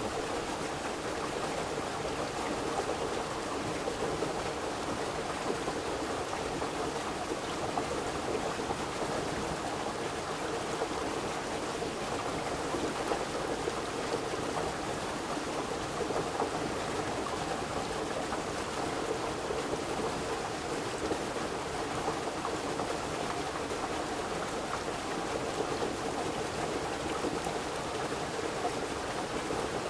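Steady, even rushing of water, unbroken throughout.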